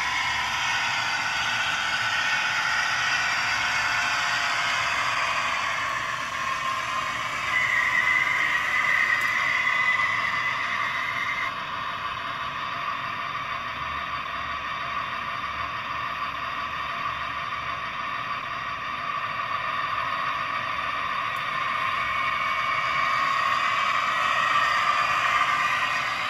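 Roco model Northlander TEE train's digital (DCC) sound decoder playing a diesel engine sound through its small onboard speaker as the train runs. About seven seconds in, a steady high tone joins for about four seconds.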